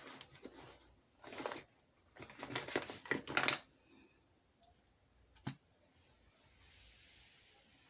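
Off-camera handling of makeup products: two stretches of rustling and scraping, then a single sharp click about five and a half seconds in.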